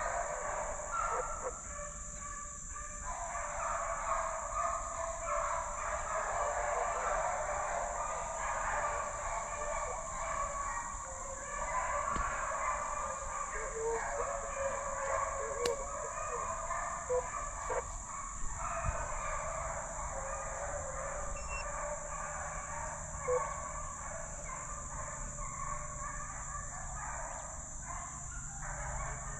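A pack of deer hounds baying together in full cry while running a deer, a dense wavering chorus of howls. A steady high whine sounds alongside it.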